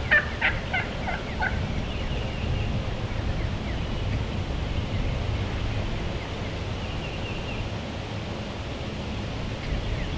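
Wild turkey gobbler gobbling once, a rapid rattling call that ends about a second and a half in. A steady low rumble and faint high chirps carry on afterward.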